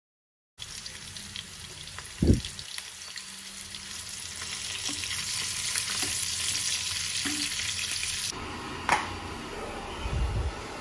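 Chicken frying in hot oil in a pan: a steady sizzle and crackle that grows louder over a few seconds. One low thump comes about two seconds in, and near the end the sound changes abruptly, with a short knock.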